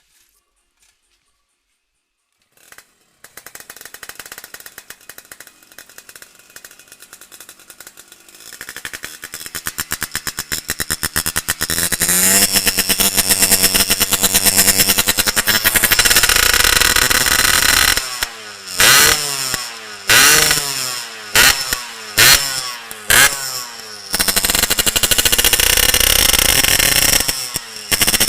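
Yamaha RX-King 135cc two-stroke single with a Boban C39 aftermarket exhaust starting about three seconds in. It idles and builds revs, is blipped sharply several times in quick succession, then runs steadily at raised revs.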